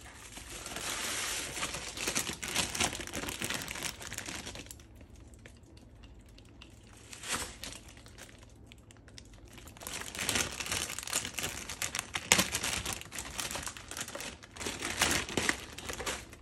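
Plastic packaging bags crinkling as they are handled, in two spells with a quieter stretch between them and a single sharp crackle about seven seconds in.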